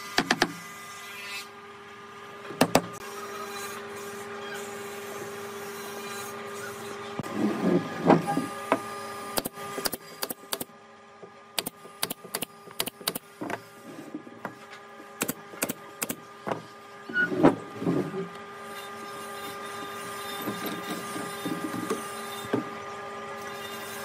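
Cordless drill running in short bursts against a wooden chair frame, twice loudly, among scattered sharp clicks and knocks on the wood and clamps, over a steady hum.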